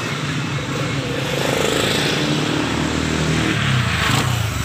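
A motor vehicle's engine running as it passes close by on the road. It grows louder, is loudest about four seconds in, and fades away right after.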